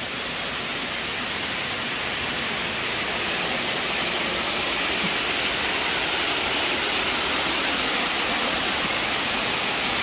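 Waterfall rushing over rocks: a steady, even noise of falling water that grows slightly louder over the first few seconds.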